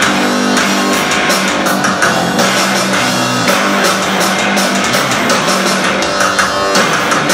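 Rock band playing live: electric guitars and bass over drums, loud and continuous, with held low notes ringing under the drumming.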